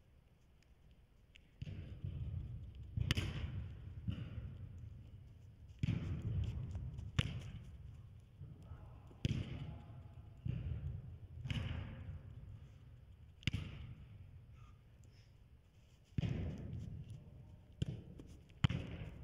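A soccer ball being kicked back and forth in a passing drill: sharp kicks and thuds every couple of seconds, about eight in all. Each echoes in a large indoor hall over a steady low rumble.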